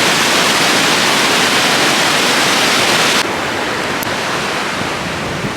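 Waterfall rushing loudly as a steady roar of falling water. About three seconds in it drops abruptly to a lower, duller level.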